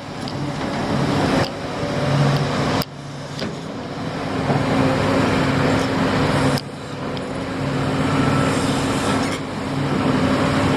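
Excavator's diesel engine running, a steady low hum with dense mechanical noise over it, changing abruptly a few times.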